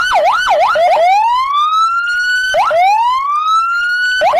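Electronic police car siren: a few fast up-and-down warbles, then two slow wails that rise and level off, then fast warbles again at the very end.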